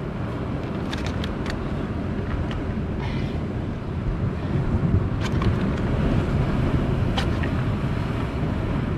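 Wind buffeting the microphone with a steady low rumble, over surf on a rocky shore, with a few scattered sharp clicks.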